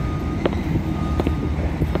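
Steady low rumble of a running heavy engine, with about four short, sharp knocks over it.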